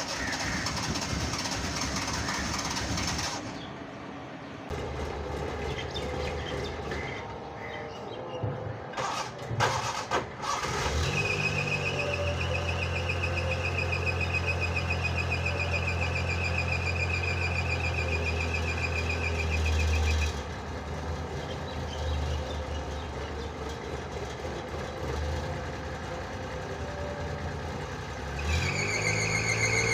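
Suzuki Mehran's starter cranking the cold, hard-starting engine in a long run of about nine seconds, a steady high whine over a pulsing hum, which then stops. A second short burst of cranking comes near the end, and a few sharp knocks come before the first run.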